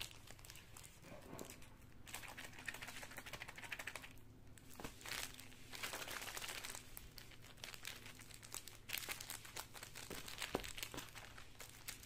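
Faint, irregular crinkling of plastic as hands squeeze and twist water-filled zip-top bags sealed with clear tape, with a couple of short pauses.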